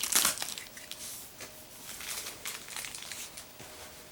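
Plastic wrapper crinkling in the hands, loud for the first moment and then dropping to a few light crinkles.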